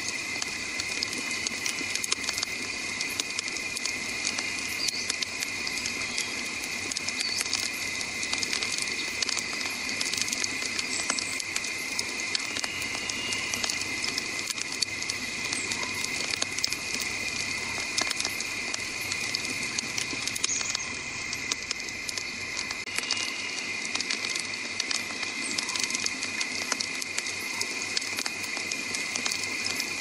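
Wood campfire of burning logs crackling and popping continuously, with a steady high-pitched drone underneath.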